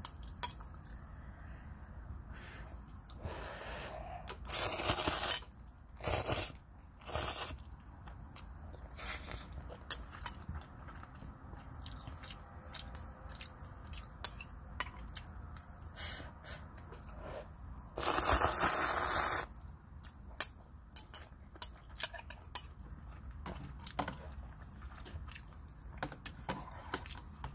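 Eating instant cup ramen: noodles slurped in several noisy bursts, the longest over a second, with chewing and many short clicks and scrapes of metal chopsticks against the cup and its paper lid.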